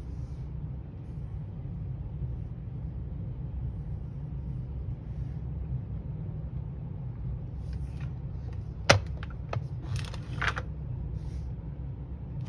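Hard plastic clicks and taps as the clear dome of a Fisher-Price Octonauts Gup-A toy is fitted back onto its hull, the loudest a single sharp snap about nine seconds in, followed by a few lighter clicks. A steady low hum lies underneath.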